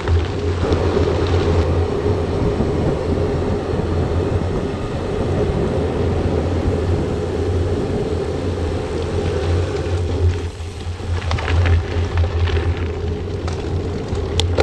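Steady rush and rumble of riding a mountain bike at speed: wind buffeting the bike-mounted camera's microphone and the tyres rolling over gravel and tarmac. The noise eases slightly about ten seconds in, and scattered short rattles and ticks follow.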